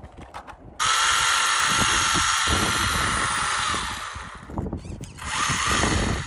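Small electric motor in an SCY 16303 RC drift car running while the car is held in hand: it starts suddenly into a loud, steady high whine, which drops in pitch and fades about three seconds later, then comes back in a shorter second burst near the end.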